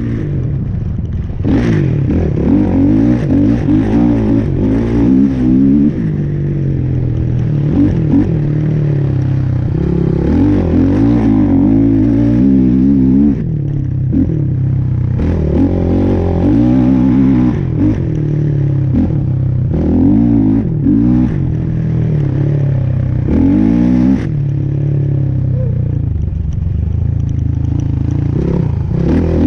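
A motor vehicle engine running under load, its revs rising and falling again and again, with some clattering.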